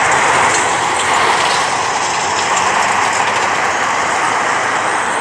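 Aircraft engines running loud and steady, slowly fading.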